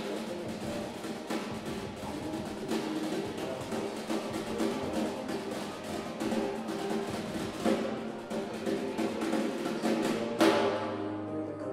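Snare drum played with sticks in quick, dense patterns over an electronic backing track of sustained pitched tones. A loud accented hit about ten seconds in rings off over about a second.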